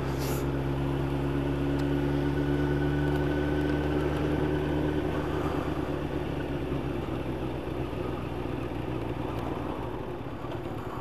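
Yamaha YZF 1000cc inline-four motorcycle engine running at steady cruising speed, heard from the rider's seat with wind and road noise. The engine note fades a little about halfway through as the bike slows.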